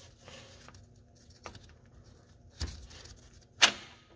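Three sharp clicks and knocks as the timing chain tensioner body is worked loose from the engine's timing chain cover; the last, near the end, is the loudest.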